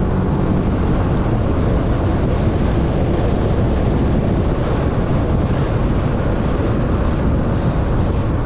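Steady road and engine noise of a moving vehicle, with wind rumbling on the microphone.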